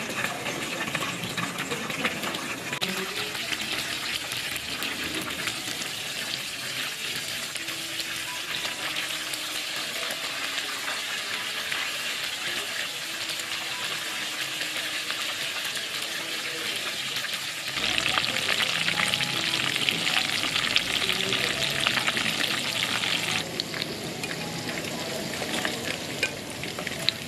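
Breaded mushroom pieces deep-frying in hot oil in a wok, a steady crackling sizzle that grows louder for a few seconds past the middle.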